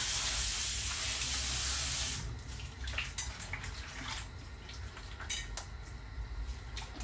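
Kitchen tap running into a stainless steel bowl of cut ash gourd pieces, shut off about two seconds in. Then small knocks and splashes as the pieces are rinsed and turned by hand in the bowl.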